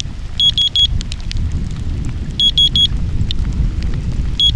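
Radiation Alert Inspector Geiger counter clicking irregularly as it registers counts, with a group of four quick high beeps about every two seconds. Underneath is a low, steady rumble of rain and wind on the microphone.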